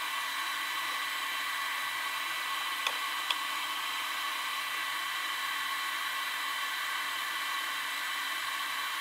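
Steady whir of electronic cooling fans with a fixed high-pitched whine, from the bench charger and inverter setup while the battery tops up on charge. Two faint clicks about three seconds in.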